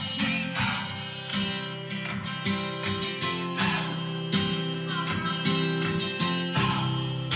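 Music with strummed guitar and a steady beat, played through a 2009 Pontiac G6's six-speaker factory sound system.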